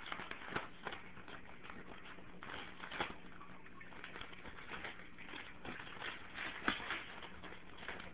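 Paper crumpling and tearing as a pug puppy bites and shakes a sheet in its mouth: irregular rustles and crackles, with one sharper crackle about two-thirds of the way in.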